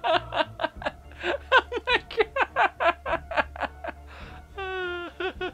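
A man laughing hard in quick, repeated bursts, with a gasping breath about four seconds in and a drawn-out, wavering vocal note near the end.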